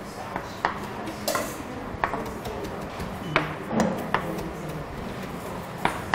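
Kitchen knife mincing cilantro on a plastic cutting board: scattered, irregular knocks of the blade against the board.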